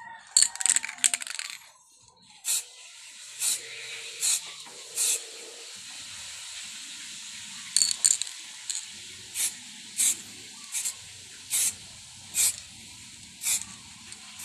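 Short hissing spray bursts, every second or so, over a steady faint hiss: a sprayer wetting a freshly hydro-dipped grab bar.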